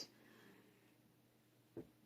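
Near silence: room tone, with a brief soft sound near the end.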